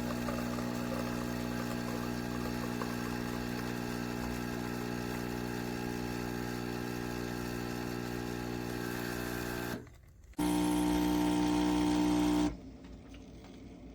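Espresso machine's pump running with a steady buzzing hum. After a brief break about ten seconds in, it comes back louder and higher for about two seconds, then stops. The machine is not building any pressure, so the steam wand spills water instead of steam.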